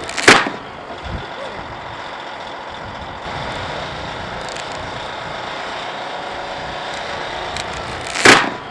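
Caterpillar D8N bulldozer's diesel engine running steadily under load as it pulls a recovery strap tight; near the end the strap snaps with a single loud crack like a gunshot. A similar sharp crack sounds just after the start.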